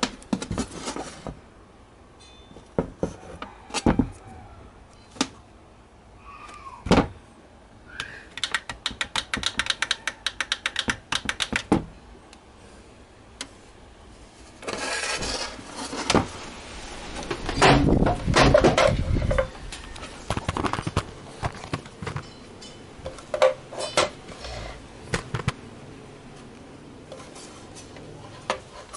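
Handling noises of an RCA digital TV box: scattered clicks and knocks as it is moved and turned over, a quick run of light clicks at about seven a second for a few seconds, then several seconds of rubbing and scraping.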